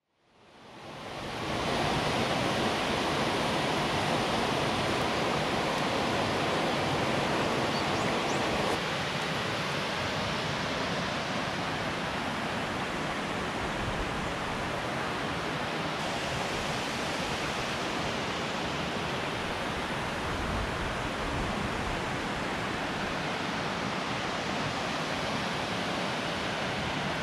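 Steady rush of a waterfall pouring into a river pool. It fades in over the first two seconds and is slightly quieter from about nine seconds in.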